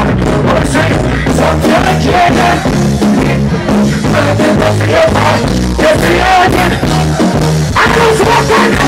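Live reggae band music played loud over a PA, with a steady, repeating bass line and a man's voice singing over it.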